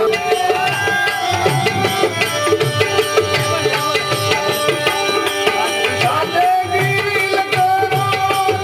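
Instrumental bhajan accompaniment: tabla strokes under held, sustained melody notes, with no singing.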